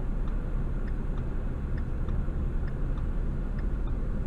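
Steady low rumble of a car idling in stopped traffic, heard from inside the cabin, with a faint, regular ticking about twice a second.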